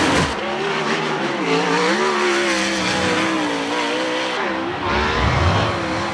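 Sprint car engines revving at racing speed, added as sound effects, the pitch wavering up and down as the throttle rises and falls. A deeper rumble swells briefly near the end.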